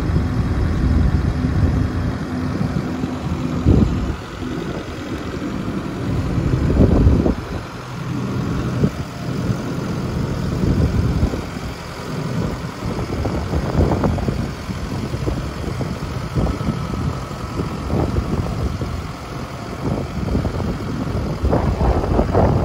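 Diesel engine of a Ravo 540 STH street sweeper running steadily at idle, with irregular gusts of wind buffeting the microphone.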